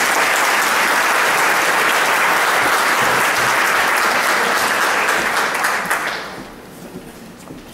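Large audience applauding at a steady level, then dying away about six seconds in.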